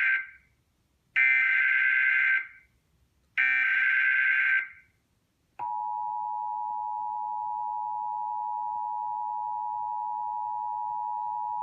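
Emergency Alert System SAME header: the end of one harsh, buzzing data burst, then two more bursts of about a second each, a second apart. After a short pause, about five and a half seconds in, comes the steady two-tone EAS attention signal (853 and 960 Hz together), which announces that a spoken alert message follows.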